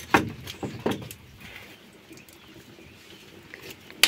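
Firewood being knocked and shifted on an open wood fire to make embers: a few heavy knocks in the first second, then a single sharp crack near the end.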